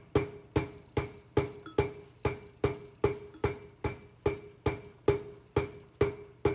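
The back end of a soft mallet taps an EverClean tumbler's drum down onto the motor shaft, seating it until the set screw lines up with the port. The taps come steady and even, about two and a half a second, each with a short ring.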